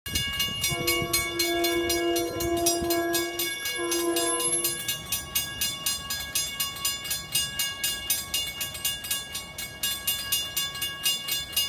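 Railroad crossing bell dinging rapidly and steadily. Over it, an approaching LIRR Bombardier M7 electric train sounds its horn from a distance: one long blast, then a shorter one ending about five seconds in.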